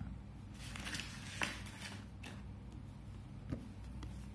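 A cardboard product box being picked up and handled: a rustling scrape for about two seconds, with two sharp knocks, one about a second and a half in and another about three and a half seconds in.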